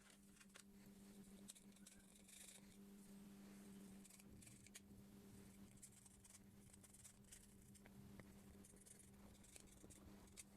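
Near silence: a faint steady low hum with scattered light clicks and ticks.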